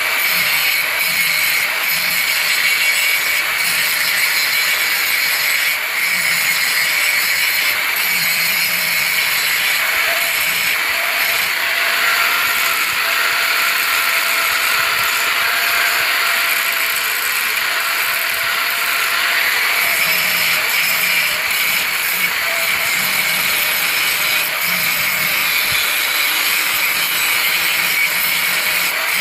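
Electric angle grinder with an abrasive disc grinding the welded joint of a curved steel blade: a steady, high-pitched whine and grinding noise without a break, with an extra lower tone for several seconds in the middle.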